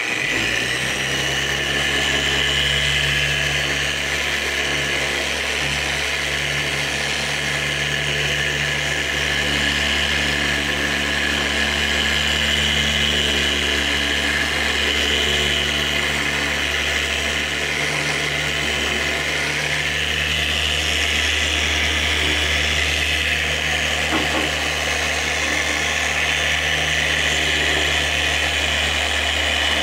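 Random orbital polisher switched on and running steadily, wet sanding a plastic headlight lens with 3000-grit sandpaper on a water-holding pad.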